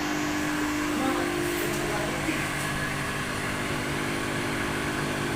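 Steady motor-like hum over a broad, even hiss.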